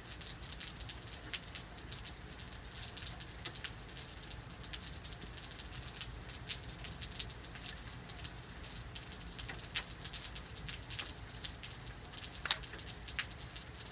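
Steady rain falling, with many separate drops and drips ticking sharply close by; one louder drip near the end.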